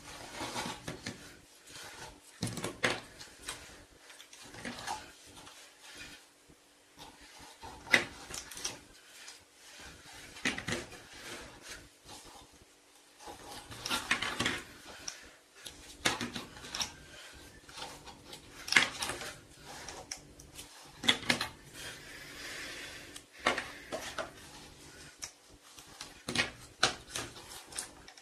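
Small plastic Play-Doh tubs and their lids being handled on a table: irregular clicks and knocks as tubs are picked up, set down and lids pulled off.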